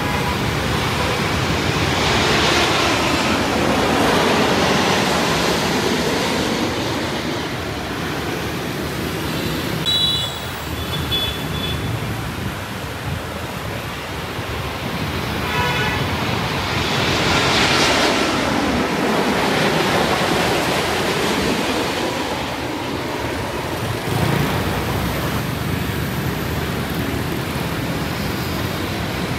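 Busy street traffic running steadily, with vehicles swelling louder as they pass and fading away twice. Two short horn beeps come about ten and fifteen seconds in.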